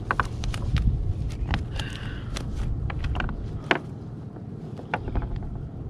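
Scattered clicks and taps from handling fishing tackle and a live mackerel aboard a kayak, over a steady low wind rumble on the microphone.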